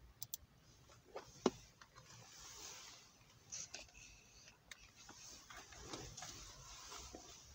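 Faint rustling with scattered light clicks and knocks, the sharpest knock about a second and a half in: handling noise in a small enclosed space.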